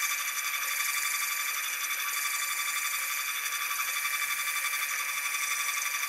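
NEMA 17 stepper motor running at steady speed, a high-pitched electronic whine with many steady tones, spinning the machine's blade gripper as it strips the insulation off wire ends.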